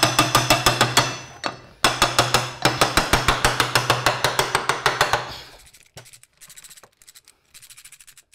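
Hammer taps on the cast end cover of a three-phase induction motor, about seven quick light strikes a second with the casing ringing, seating the cover over the rotor bearing. The taps pause about a second in, resume, and stop about five seconds in, followed by faint quick clicks as the cover bolts are worked.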